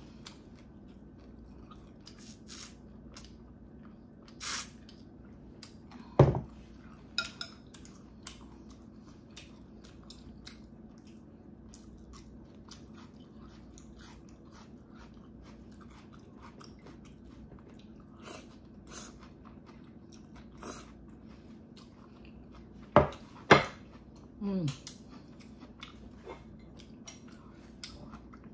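Close-up eating sounds: chewing, with scattered clicks of chopsticks and a spoon against ceramic bowls over a faint steady hum. Ice clinks in a glass early on as she drinks, and two sharp knocks a little before the end are the loudest sounds.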